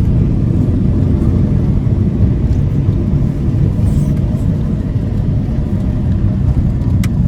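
A car driving, heard from inside: a loud, steady low rumble of road and wind noise.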